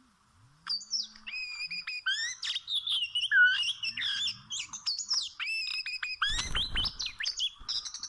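Oriental magpie-robin singing a fast, varied run of clear whistled phrases, with a brief rustle about six seconds in.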